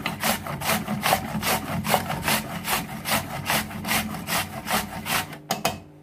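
Peeled kochu (taro) root being grated on a flat perforated metal hand grater: rhythmic back-and-forth rasping strokes, about two to three a second, that stop shortly before the end.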